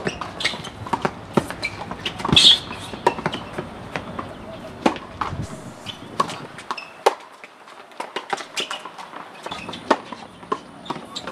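Tennis balls being struck by rackets and bouncing on a hard court, sharp irregular pops from several rallies overlapping, with a brief high squeal about two seconds in.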